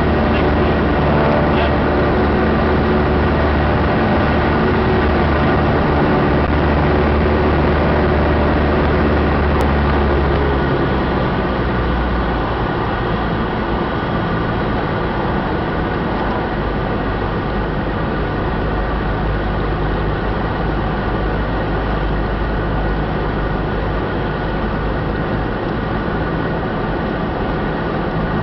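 Cessna 172's piston engine and propeller droning steadily inside the cabin, with airflow noise. About ten seconds in the drone drops to a lower pitch and gets a little quieter, as power comes back for the landing approach.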